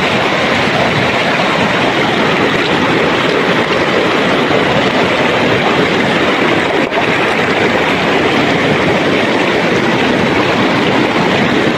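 Shallow river rushing over stones and gravel: a loud, steady rush of water.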